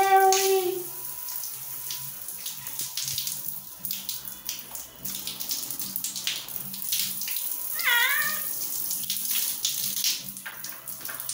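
Running water splashing over a wet kitten's fur as a hand rinses and rubs it, with scattered wet patting and rubbing noises. The nervous kitten gives a falling meow at the very start and another short one about eight seconds in.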